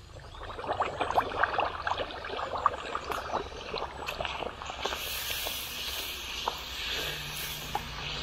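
Chola poori (bhatura) dough deep-frying in hot oil: a dense crackling sizzle starts about half a second in and settles into a steadier hiss from about five seconds.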